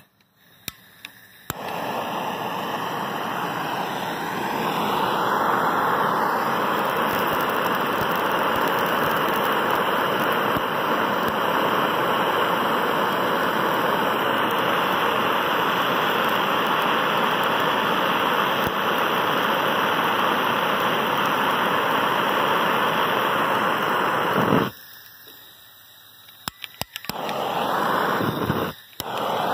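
Gas torch flame hissing steadily after a couple of clicks as it lights. It stops suddenly about 25 seconds in, then comes back in short bursts near the end.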